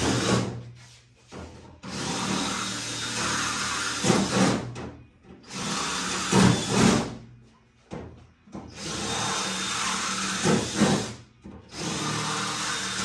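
Power drill running in repeated bursts of one to three seconds with short pauses, five times. It is drilling small holes in the Humvee's aluminum body panel out from 3/16 to 1/4 inch to clear paint from them before welding.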